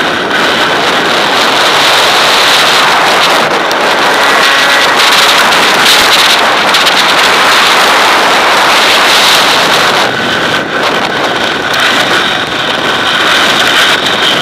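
A sled sliding fast over snowy lake ice, towed by a KTM EXC 300 two-stroke dirt bike, with heavy wind noise on the microphone. The bike's engine note sounds faintly ahead, clearest near the end.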